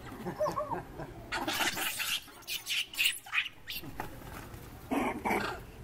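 Young macaques squealing and screeching as they chase and wrestle. A short wavering squeal comes first, then a run of harsh cries, and two more near the end.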